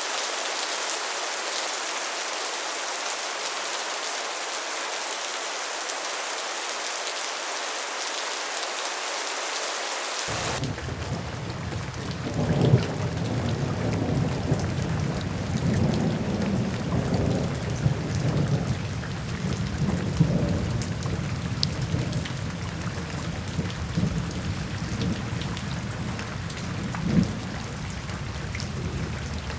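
Steady rain hiss. About ten seconds in it cuts abruptly to softer rain with long, low rolling thunder rumbles that swell and fade.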